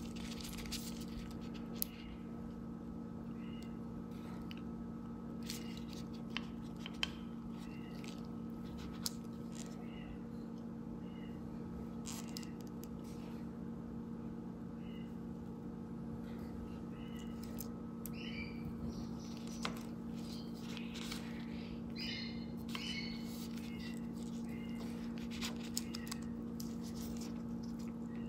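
Small clicks and taps of a clock mainspring barrel and a fine oiler being handled during oiling, over a steady low hum. Short high chirps come and go, in a cluster about three-quarters of the way through.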